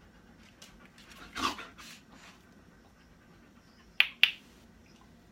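A dog's short huff of breath, followed near the end by two sharp clicks about a quarter second apart.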